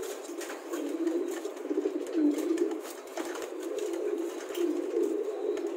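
Show King pigeons cooing in repeated low phrases, mixed with the quick slaps and scuffles of flapping wings as two of them fight.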